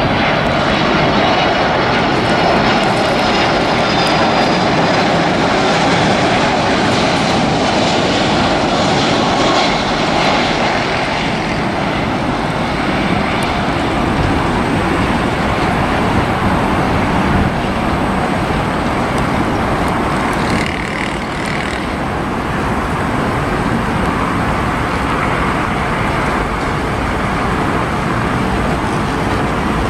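A Boeing 767's twin jet engines on final approach: a steady, loud rushing noise, with a faint high whine in the first few seconds.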